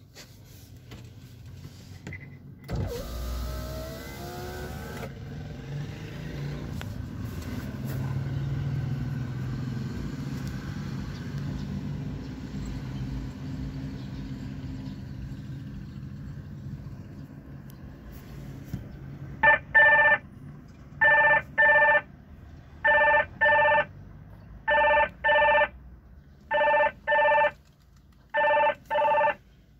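Inside a moving car: a brief whir rising in pitch a few seconds in, then the car running with a steady low hum. About two-thirds of the way through a phone starts ringing, a repeated double ring about every second and a half, and this is the loudest sound.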